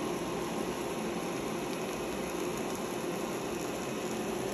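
Steady hiss and hum of beaten egg with diced tomato and onion frying in a nonstick pan, the omelette still setting.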